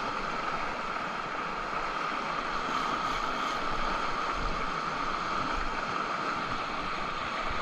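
Steady rush of a fast river current washing against a rocky shoreline.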